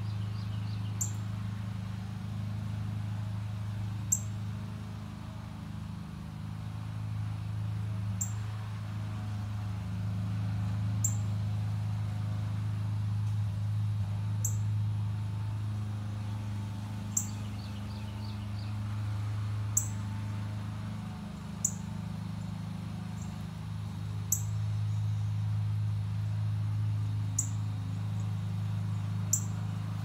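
Northern cardinal giving sharp, high chip notes, one about every three seconds. A steady low hum runs underneath.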